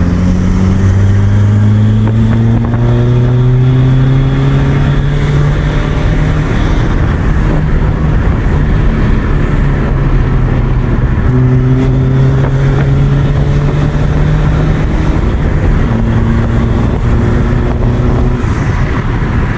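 Tuned Peugeot 206 2.0 HDi four-cylinder turbodiesel, with a larger TD04L turbo, decat and silencer delete, pulling under load as the car is driven hard. The engine note climbs over the first five seconds, then breaks off and picks up again about 11 and 16 seconds in, over steady road noise.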